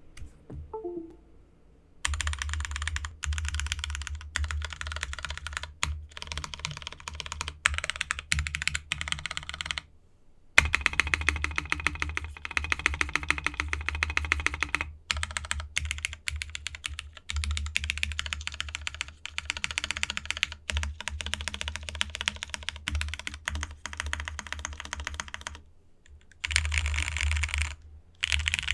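Typing on a custom mechanical keyboard with lubed and filmed Hyperglide MX Black linear switches, an aluminium plate and DCS-profile keycaps: fast, steady runs of keystrokes. The typing starts about two seconds in and pauses briefly twice, about ten seconds in and near the end.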